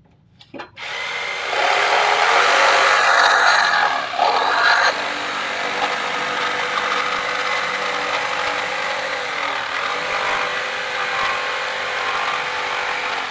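Jigsaw starting up about a second in and cutting through a pine board, the blade running steadily through the wood, loudest for the first few seconds.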